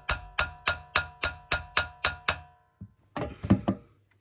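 Steady metallic clicking or tapping from a hand tool on metal, about four strikes a second, each with a short ringing tone. It stops a little over two seconds in, and a few irregular knocks and rattles follow near the end.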